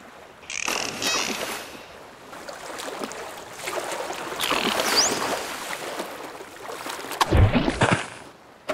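Ocean waves washing in and drawing back on a sandy beach. A short rising whistle about five seconds in, and a deep thump near the end, the loudest sound.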